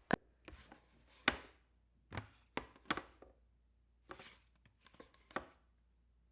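A series of short, sharp knocks and clicks at an irregular pace, about a dozen over several seconds, with quiet between them.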